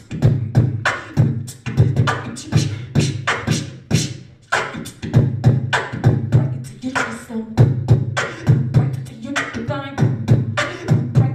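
Beatboxing into a handheld microphone: a steady beat of mouth-made bass kicks and sharp snare-like clicks, with a short pitched vocal sound near the end.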